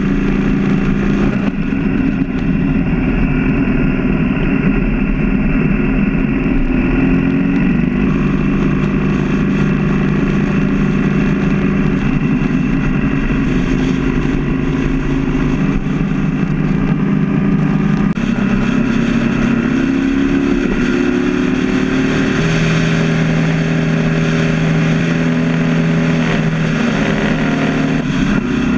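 BMW R 1200 GS boxer-twin engine running steadily at motorway speed, heard from the bike itself, its pitch stepping up and down a few times and rising once near the end.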